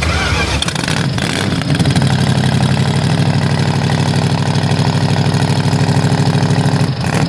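An engine idling with an even, quick pulsing beat, holding a steady pace.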